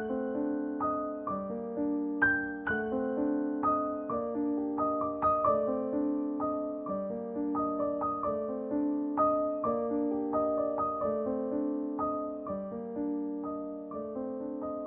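Background music: soft, slow piano playing steadily, one note or chord after another.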